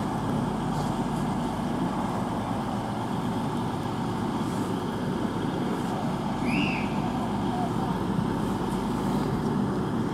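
Class 221 Voyager diesel-electric multiple unit standing with its underfloor diesel engines idling: a steady low hum. A short high chirp sounds about six and a half seconds in.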